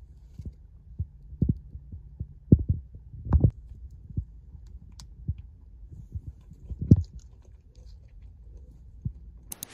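A plastic candy wrapper being handled and twisted open: irregular soft low bumps from the fingers and wrapper, with a few faint crinkles, over a low steady hum.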